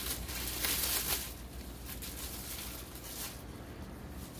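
Plastic wrapping rustling and crinkling as it is pulled off a new pizza peel, loudest about a second in.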